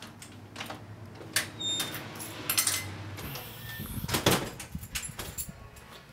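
A door being handled: a run of clicks and knocks, with a heavier thump about four seconds in.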